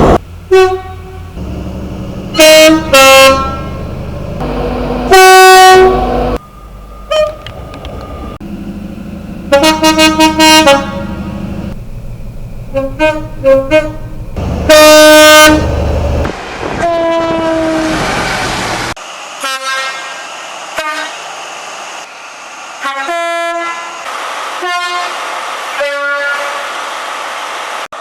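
British diesel trains sounding two-tone horns: a run of short, loud blasts, often a higher and a lower note in turn, from several different trains. A steady low engine rumble underlies the first two-thirds and stops abruptly at a cut.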